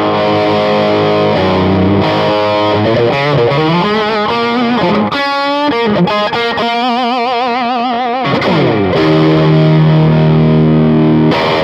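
Electric guitar played straight through a Tube Town Lummerland Express tube amp with no pedals, overdriven only by the amp's volume knob. It plays held chords, then bent and vibrato lead notes in the middle, and ends on a long sustained chord that stops abruptly.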